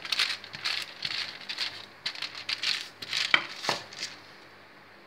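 Baking paper rustling and crinkling under a wooden rolling pin, pushed back and forth in repeated swishes over a layer of warm sesame-and-honey brittle mixture to flatten it. The rolling stops about four seconds in.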